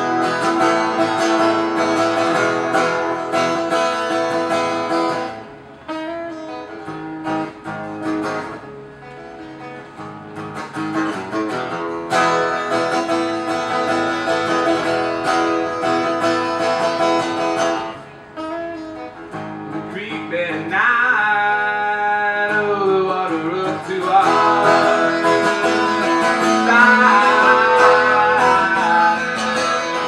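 Live acoustic guitar music: a strummed and picked acoustic guitar, easing off twice, with a voice singing gliding, bending notes without clear words in the later part.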